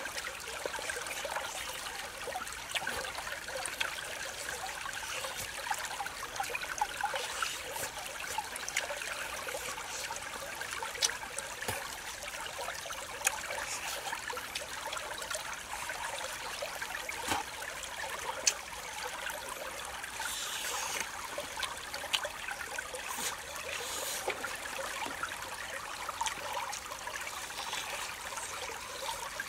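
Steady trickling of a small forest stream, with a few sharp clicks over it.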